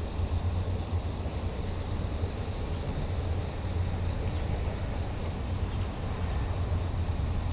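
Steady low rumble of road traffic, with an even background hiss.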